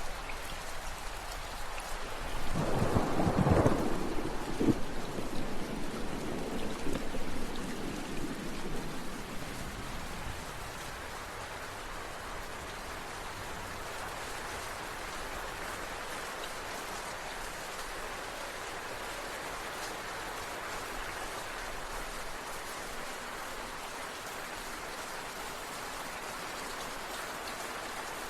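Steady rain, with a roll of thunder that swells about two seconds in, is loudest around three to four seconds in, and rumbles away by about ten seconds. After that only the even hiss of rain remains.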